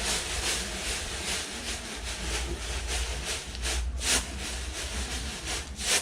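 Hand-turned rice husking mill grinding paddy: a rhythmic rasping rub about twice a second as the millstones strip the husks off the grain, with a few sharper, louder scrapes near the end.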